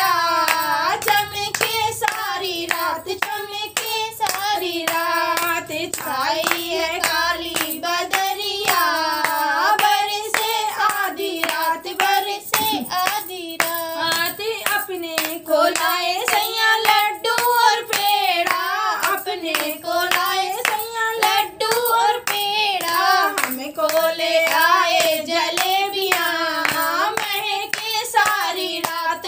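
A woman singing a Hindi folk song, a rain song, keeping time with steady rhythmic hand claps.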